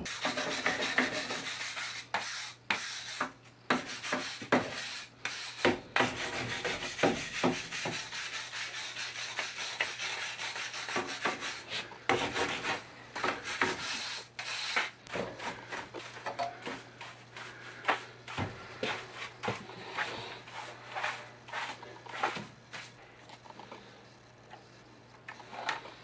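Rapid back-and-forth scraping and rubbing strokes on a concrete foundation wall, with the surface along the crack being cleaned for epoxy injection. The strokes are dense at first and grow sparser in the second half, over a steady low hum.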